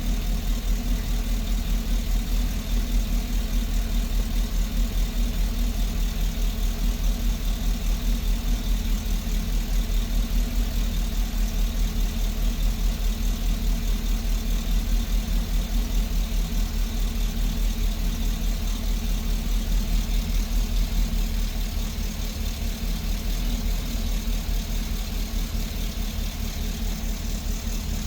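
GMC truck engine idling, with an even, regular pulse that eases slightly about two-thirds of the way through.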